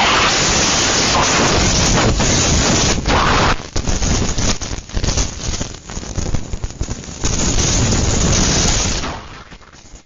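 Hurricane Ida's storm wind blowing hard against the microphone. It is loud and steady for the first few seconds, then rises and falls in gusts, and drops away near the end.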